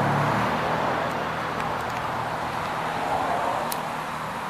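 Great Dane C5 Chariot zero-turn mower's 23 HP Kohler engine running steadily with a low, even engine hum.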